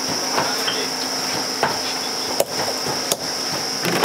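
Knife knocking on a wooden board as fish are cleaned and cut up: several sharp knocks, roughly one a second, over a steady high hiss.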